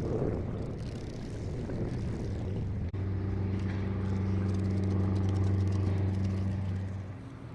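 Steady low engine hum, like a motor vehicle or motorboat running. A rumbling stretch ends at a sudden break about three seconds in, the hum then holds one steady pitch, and it fades near the end.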